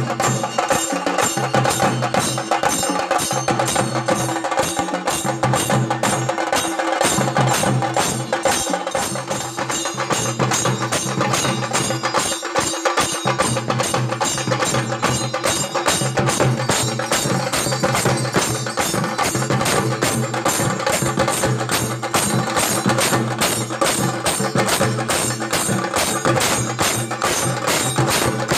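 Music driven by a fast, steady percussion beat of sharp clacking strokes, about three a second, over a steady low tone.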